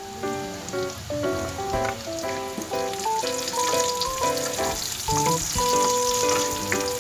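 Minced garlic and sliced red onion frying in hot oil in a wok and stirred with a wooden spatula, a steady sizzle that grows louder near the end. Background music with a light melody plays over it.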